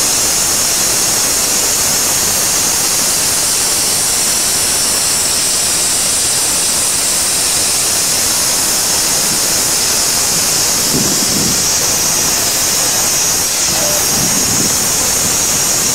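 Steam locomotive standing and releasing steam: a loud, steady hiss with no break. Faint voices come through briefly near the end.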